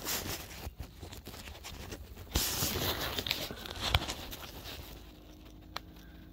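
Handling noise from the camera being picked up and set down again: fingers and fabric rubbing over the microphone, with a loud scraping rustle a little over two seconds in and a sharp knock about a second later, then quieter.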